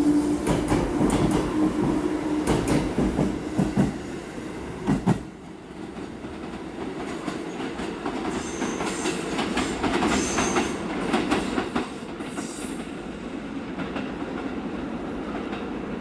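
Electric train running through the station: wheels clattering over rail joints with a heavy rumble, dropping away about five seconds in. Afterwards a lighter steady rumble remains, with a few brief high-pitched wheel squeals in the middle.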